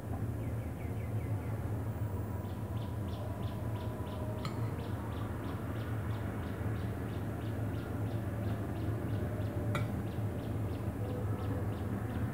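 A bird chirping over and over, about three short chirps a second, over a steady low hum. Twice a metal spoon clinks sharply against a ceramic bowl while vegetable filling is scooped out.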